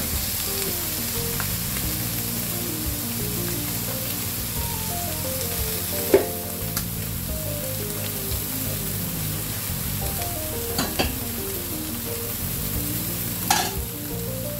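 Freshly boiled green beans and vegetables sizzling on a large hot tawa griddle, a steady frying hiss with a few sharp clicks, the loudest about six seconds in.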